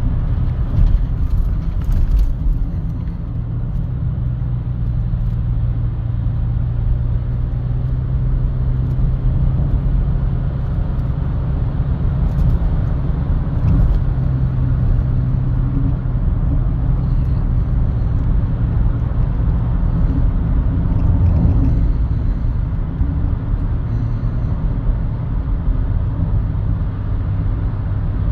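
Heavy engine running with a loud, steady low rumble, its pitch wavering a little now and then.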